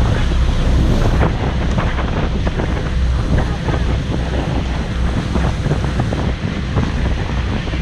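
Wind buffeting the microphone on a moving river passenger boat, over the boat's steady low engine rumble and the splashing of its wake along the hull.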